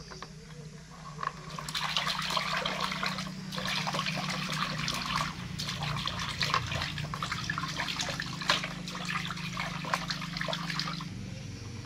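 Water splashing and sloshing in a plastic tub as hands scoop and rub water, thickening about a second and a half in. A low steady hum runs underneath and stops near the end.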